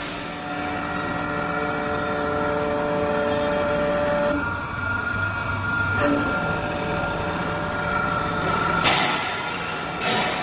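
WS-L1530A CNC wood lathe running and cutting: a steady machine whine of several held tones over the hiss of the cutters taking wood off the spinning blank. It eases briefly in the middle, and short rushes of cutting noise come near the end.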